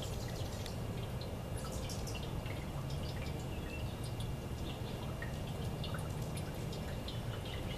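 Water trickling from the spouts of a tiered metal birdbath fountain into its bowls, a steady patter of small drips and splashes over a low rumble.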